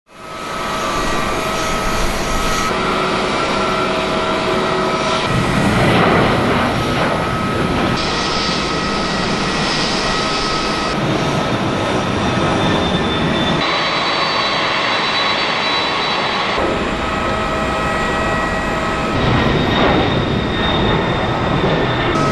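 Airliner jet engines running: a steady rushing noise with a constant whine. The sound changes abruptly every two to three seconds.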